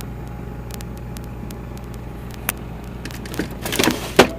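Items being handled in an open refrigerator: a click, then a quick run of rustles and knocks, the loudest near the end, over a steady low hum.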